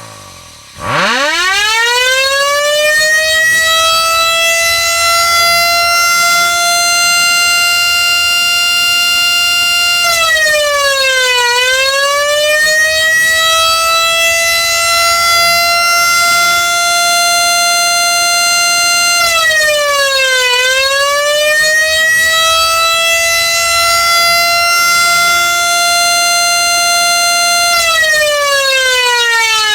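Motor siren winding up quickly to a steady wail and holding it, twice dipping briefly in pitch and winding back up, then winding down near the end: three consecutive blasts of roughly ten seconds each in a timed signal pattern. The falling tail of an earlier blast is heard at the very start.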